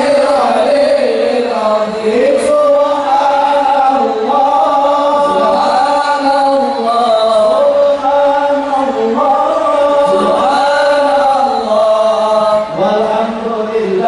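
Islamic devotional chanting: a slow melody sung in long, drawn-out lines, with short breaks for breath between phrases.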